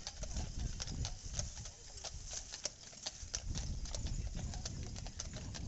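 Team of Percheron draft horses pulling a steam fire engine, their hooves clip-clopping irregularly on pavement over a low rumble.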